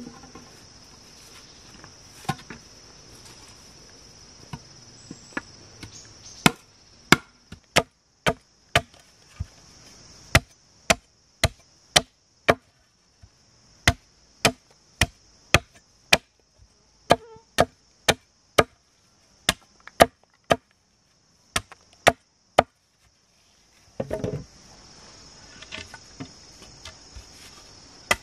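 A blade chopping into wood in a steady run of sharp strokes, about two a second, beginning several seconds in and pausing briefly near the end. A steady high buzz of insects runs underneath.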